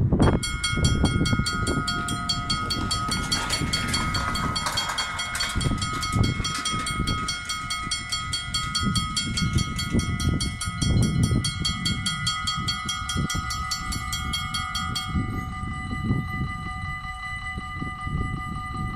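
Railway level-crossing warning bell ringing with rapid, evenly repeated strokes while the barriers lower. About fifteen seconds in, once the barriers are down, the ringing changes to a softer pattern. Wind buffets the microphone throughout.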